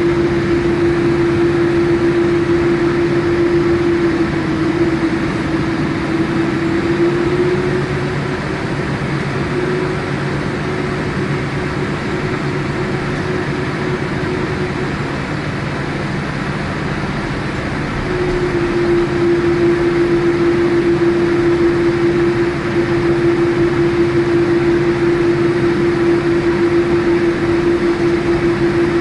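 Boeing 787-8 airliner's jet engines running steadily at low power, a constant hum with a clear steady tone over it. The tone fades and drops out from about eight to eighteen seconds in, then comes back, while the overall sound stays even.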